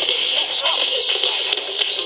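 Old-school b-boy music from a cassette tape, played through a homemade stereo's small speaker, with a tinny sound and little bass.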